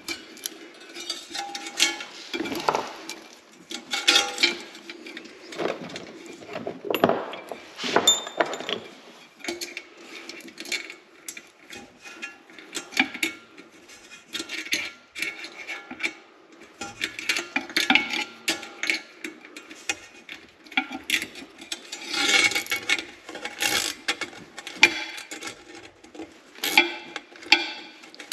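Irregular metallic clinks, taps and knocks of hand tools and parts being handled while the pipes are fitted onto a diesel heater, over a faint steady hum.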